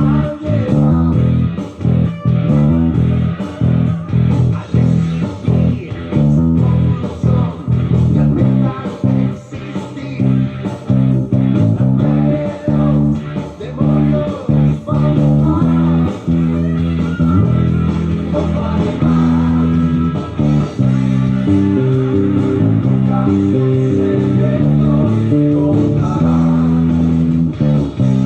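Electric bass guitar playing a riff, plucked notes in quick succession. Later on the notes are held longer.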